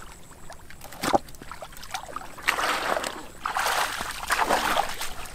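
Hands and feet sloshing and splashing in shallow muddy water while groping for fish by hand, in noisy bursts through the second half. There is one sharp knock about a second in.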